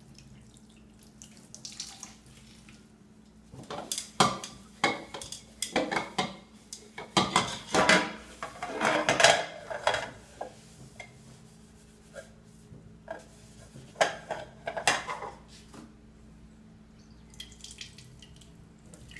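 Dishes being washed by hand in a stainless steel sink: a sponge scrubbing and plates, cups and cutlery knocking and clattering, with water sounds. After a quiet start there is a busy stretch of scrubbing and clatter, then only scattered clinks.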